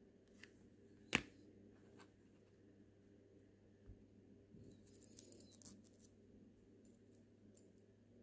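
Small metal tools clicking against a watch movement during assembly: one sharper click about a second in, a few fainter clicks, and a quick cluster of tiny ticks around five seconds, all close to silence.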